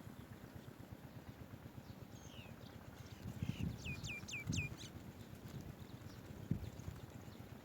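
Swallow-tailed bee-eater calling: a few scattered high chirps, then a quick run of four sharp calls that slide down in pitch, about four seconds in. Dull low thumps come in among them, the sharpest about two seconds later.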